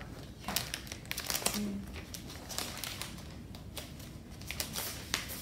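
Plastic packaging of a MacBook Air box being crinkled and torn open, a run of irregular crackles and rustles.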